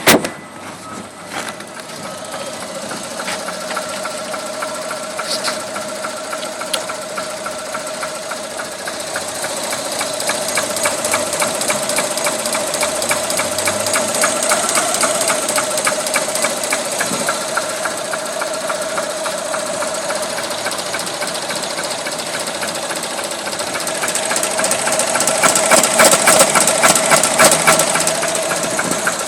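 Subaru Legacy boxer engine running cold with a fast, even knocking tick, which the owner puts down, with some doubt, to a faulty idle air control valve. A sharp click comes at the very start, and the engine grows louder about a third of the way in and again near the end.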